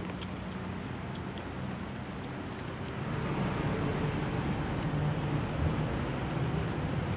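Steady low background rumble outdoors, getting a little louder about three seconds in.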